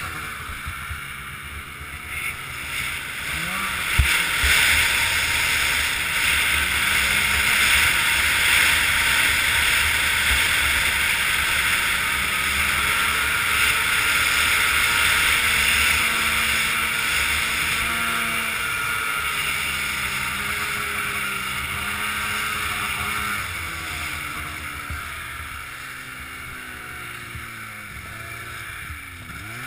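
Polaris 800 Dragon snowmobile's two-stroke twin engine running under changing throttle, its pitch rising and falling, with wind rushing over the microphone. A sharp knock about four seconds in, and the engine gets quieter through the second half.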